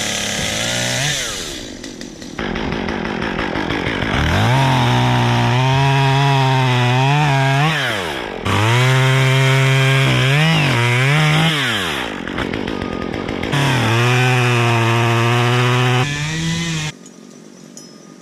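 Gas chainsaw running at high revs, its pitch dipping and recovering again and again as it cuts, in several stretches that start and stop abruptly.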